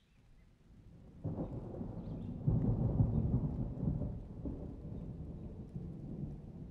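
A deep, thunder-like rumble that swells about a second in, is loudest around the middle, then slowly dies away.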